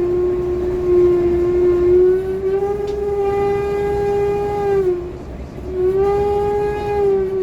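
City bus giving a loud, sustained, whale-like squeal: one steady tone with overtones that wavers a little in pitch, fades out just after five seconds in and comes back about a second later.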